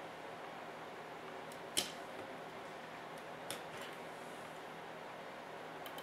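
A few light clicks and taps as small kit parts and a screwdriver are handled during model assembly: one sharp click about two seconds in, softer ones around three and a half seconds and near the end, over a low steady hiss.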